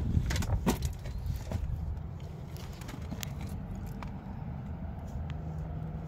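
Low wind rumble on the microphone with a few light clicks and taps, most of them in the first second or two: handling noise at an open car door with the engine off.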